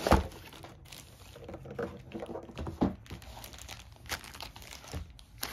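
A cardboard game box being opened and its contents handled: a sharp knock at the start, then plastic bags of cards and tokens crinkling and rustling, with scattered light taps.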